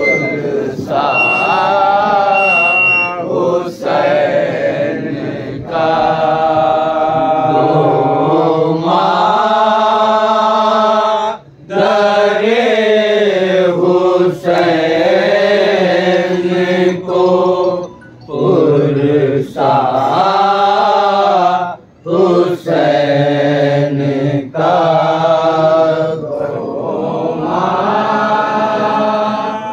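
Men chanting a noha, a Muharram lament, with no instruments. The voices hold long drawn-out phrases, broken by brief pauses for breath.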